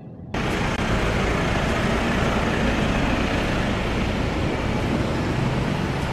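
Steady traffic and road noise with a low rumble, coming in suddenly about a third of a second in.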